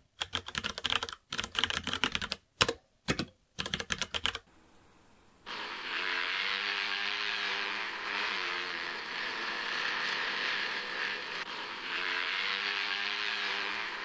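Rapid computer-keyboard typing, a dense run of clicks for about four seconds. After a short pause comes a steady rushing noise with a faint wavering hum underneath, an engine-like sound effect from an AI-generated video.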